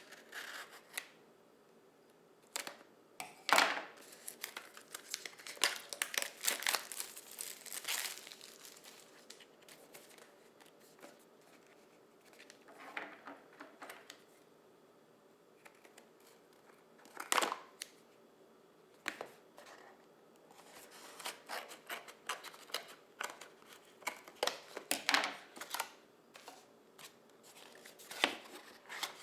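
Product packaging being opened and handled by hand: irregular bursts of crinkling and rustling, with a few sharper crackles, coming in clusters separated by quieter pauses.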